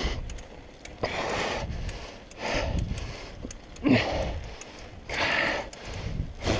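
Heavy, laboured breathing of a cyclist out of breath from pedalling uphill: about five loud breaths, roughly one every second and a quarter.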